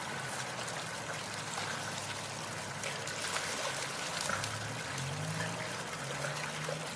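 Dogs moving and splashing through a shallow muddy puddle: steady wet sloshing and trickling of water and mud, with small scattered splashes.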